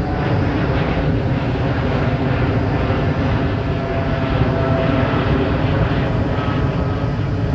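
Boeing 787 Dreamliner's jet engines at climb power just after takeoff: a loud, steady jet noise with a deep rumble and a few faint whining tones.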